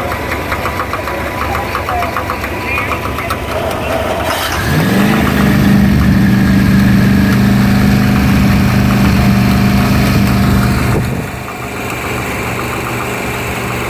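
Inboard engine of a classic wooden runabout being cranked with the starter. It catches about four and a half seconds in, with a quick rise in pitch, and runs steadily at a fast idle. Near the end it drops back to a lower idle.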